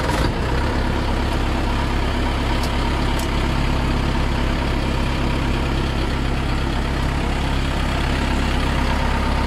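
Engine of a 6-ton truck crane idling steadily, a constant low hum with a thin steady whine above it.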